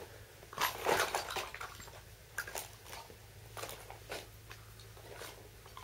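Handling noise: a burst of rustling about a second in, then scattered light clicks and knocks. No gunshot.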